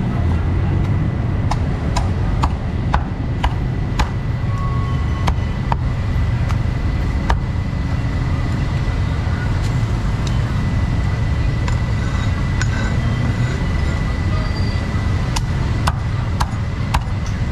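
Busy street-market ambience: a steady rumble of traffic, with scattered sharp clinks and knocks throughout and a thin steady high tone for most of the stretch.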